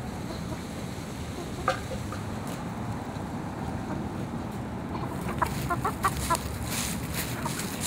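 Domestic chickens clucking: a single short call a little under two seconds in, then a run of short clucks from about five seconds in, over a steady low background rumble.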